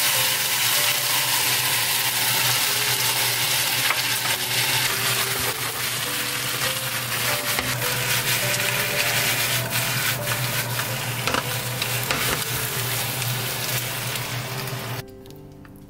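Sweet-and-sour sauce sizzling loudly in a hot frying pan as stir-fried vegetables and chicken are stirred and tossed while the sauce reduces, with scattered light clicks and knocks. The sizzle cuts off suddenly near the end.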